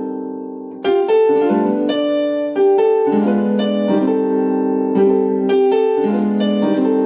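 Keyboard playing held chords of a passing-chord progression leading to the IV chord. A chord rings on and fades, then a new chord is struck about a second in, and further chords follow every second or so.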